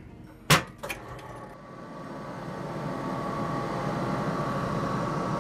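Benchtop centrifuge: the lid is shut with a sharp clack and a second smaller click, then the motor spins the loaded rotor up, a steady whirring hum with a faint whine that grows louder for a couple of seconds and then holds.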